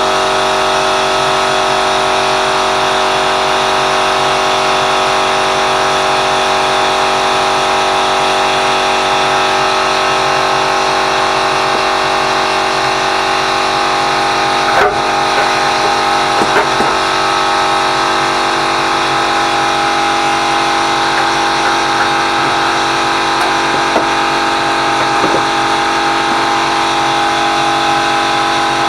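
A steady, loud mechanical hum made of several fixed tones over a noisy background, unchanging throughout.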